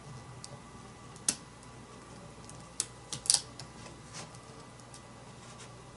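Light clicks and taps from handling the plastic and the display cable connector of a laptop screen panel being fitted: one about a second in, a quick cluster of three or four near the middle, and one more shortly after.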